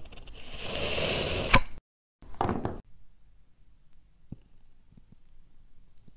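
Kinetic sand being cut and crumbling: a gritty hiss builds for about a second and a half and ends with a sharp click. After a short break comes a brief crunch, and then only a few faint ticks.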